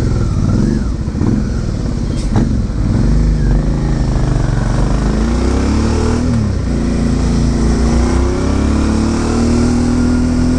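Suzuki V-Strom 650's V-twin engine running under way, its pitch rising and falling with the throttle, then settling into a steady note near the end.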